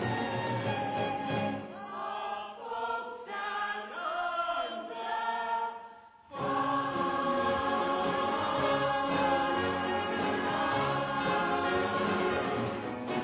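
Musical theatre cast singing together in chorus over instrumental accompaniment. The music breaks off for a moment about halfway through, then the full ensemble comes back in.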